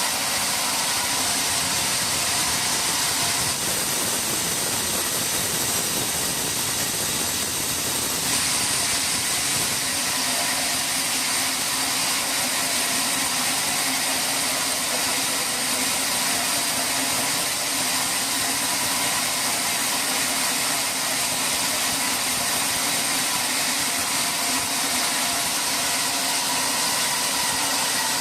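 Sawmill machinery running steadily: a continuous mechanical drone with a hiss over it.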